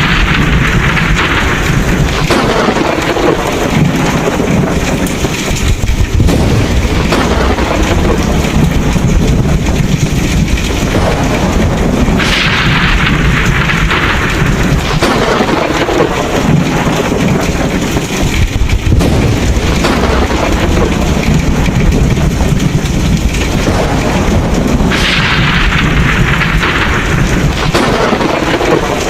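Thunderstorm: heavy rain hissing steadily over a continuous low rumble of thunder, with the rain swelling brighter about every twelve seconds.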